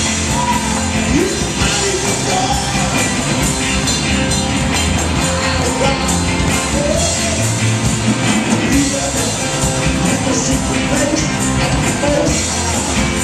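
Live gospel band playing: electric guitars and drums, with a man singing lead over them.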